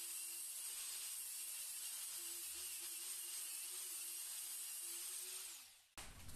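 Small electric angle grinder running steadily as it chamfers the cut edge of a ceramic tile, a steady whine over a hiss. Near the end it is switched off and winds down, its pitch falling away.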